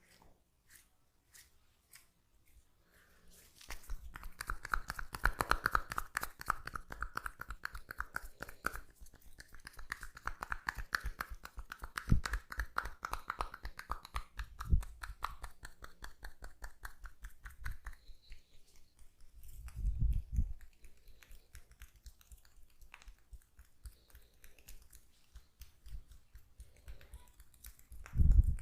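Oiled hands massaging the neck and shoulders: fast, wet clicking and slapping of oily skin, with a few heavier low thumps, the loudest near the end.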